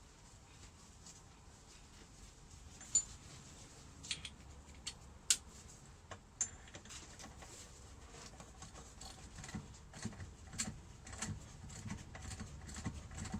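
Scattered sharp metallic clicks and knocks of hand tools on a motorcycle fork. From about ten seconds in comes a quicker run of small clicks as the fork's bottom bolt is turned in with a 7mm hex socket.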